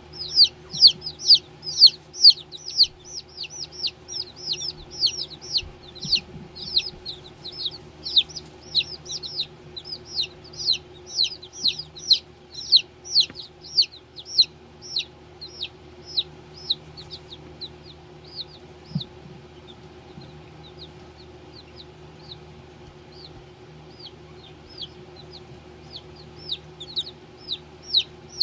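Baby chicks peeping: short, high, falling peeps about three a second. They are busy at first, thin out to a few scattered peeps past the middle and pick up again near the end, over a steady low hum.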